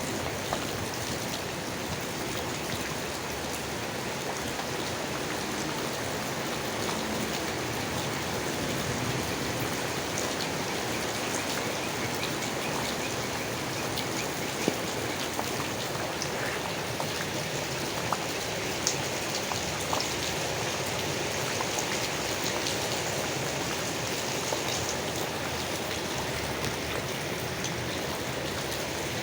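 Steady rain falling on leaves: an even hiss with individual drops ticking here and there, a few of them sharper and louder in the second half.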